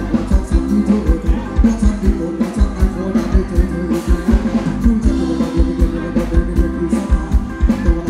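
Live band playing Thai ramwong dance music, with a steady drum-kit beat over a strong bass.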